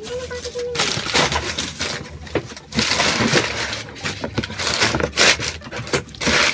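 Plastic bags and a cardboard delivery box being handled, irregular crinkling and rustling as hands rummage in the box and move it, heaviest in the second half.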